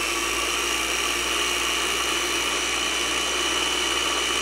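Small electric mini chopper (food processor) running steadily with a high, even motor whine while it blends thick, gelled blueberry confit into a smooth purée.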